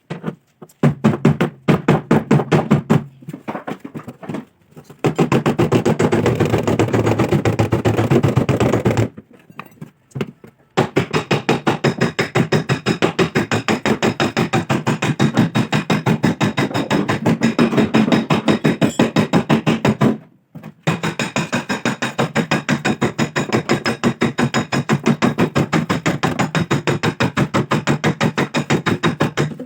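Rapid, steady hammer taps on car body sheet metal, panel-beating a dented quarter panel. The tapping runs in long spells of several strikes a second, with short breaks about four seconds in, around nine to ten seconds, and near twenty seconds.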